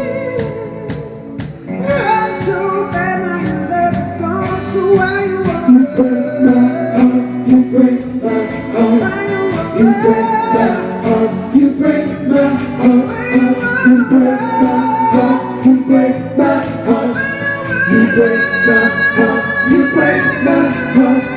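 Live pop band music with singing over the band's backing, softer for the first second or two before it builds again.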